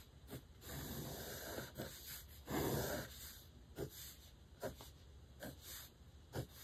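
Mechanical pencil scratching across paper as lines of a box diagram are drawn: a couple of longer strokes, then several short quick ones.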